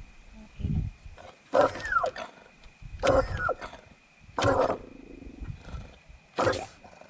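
An animal calling four times: loud, harsh calls under half a second each, spaced one and a half to two seconds apart, some falling in pitch.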